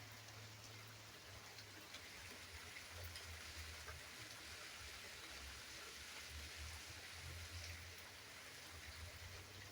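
Faint steady rain, an even hiss with scattered ticks of individual drops. A low rumble comes and goes underneath.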